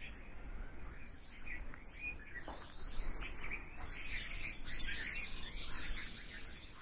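Small birds chirping, many short calls scattered through and busier in the second half, over a low steady rumble.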